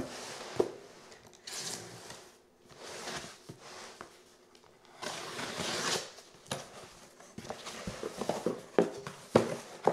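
Utility knife slicing through packing tape on a cardboard shipping box: several zipping strokes of the blade along the tape. Near the end, cardboard flaps are pulled open with a few sharp knocks and rustles.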